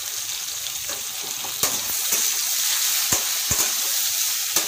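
Chopped onions and tomato sizzling in hot oil in a metal kadai, a steady hiss. A metal spoon stirs them, knocking sharply against the pan several times from about a second and a half in.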